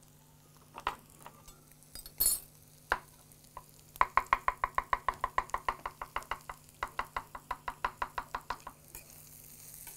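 Chef's knife slicing mushrooms on a wooden cutting board: a few single knocks, then about four seconds in a fast, even run of cuts, about eight or nine a second, with a short break in the middle, stopping near the end.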